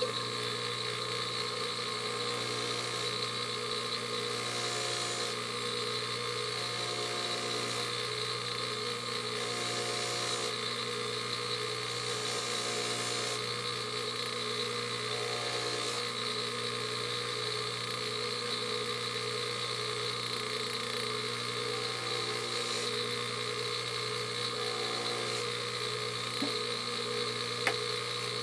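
Bench grinder with a polish-loaded buffing wheel running steadily, with a constant motor hum and whine. A sanded plastic headlight lens is touched lightly against the spinning wheel, giving a few brief hissing brushes as the lens is buffed clear.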